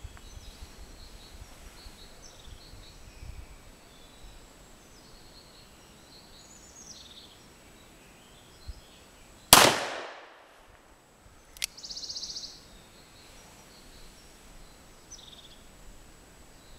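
A single shot from a Smith & Wesson Model 1917 revolver chambered in .45 ACP, about nine and a half seconds in, its report dying away over about half a second. Faint bird chirps can be heard around it.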